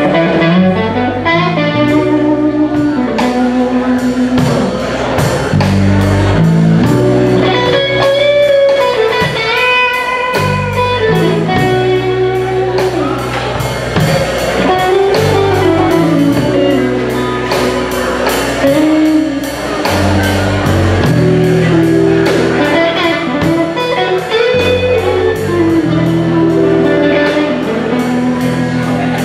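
Live blues band playing during a sound check: a guitar line over a steady bass and a drum beat.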